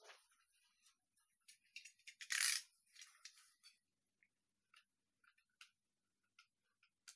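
Faint scraping and small clicks of a craft knife trimming a cast plastic figurine held in the hand, with one louder, brief scrape about two and a half seconds in.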